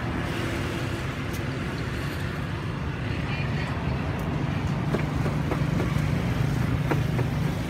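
Steady low rumble of a motor vehicle engine, growing a little louder in the second half, with a few faint clicks.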